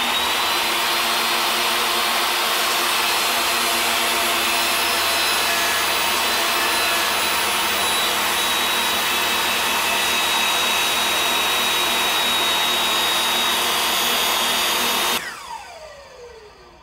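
DeWalt jobsite table saw running at full speed with a steady high whine while ripping a maple block in half lengthwise. About fifteen seconds in the motor cuts out and the blade winds down with a falling whine.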